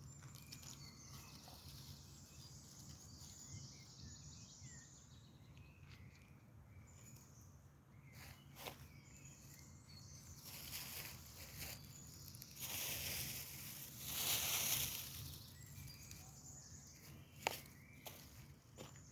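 Wood fire crackling with sharp pops a few times, and a louder hissing rush about two-thirds of the way through. Small birds chirp over it, mostly in the first half.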